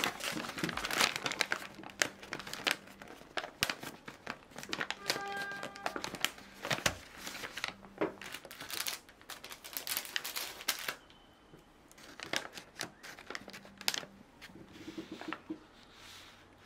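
Kraft paper bag crinkling and rustling in the hands as it is handled and its top is folded over, a dense run of irregular sharp crackles that eases off now and then.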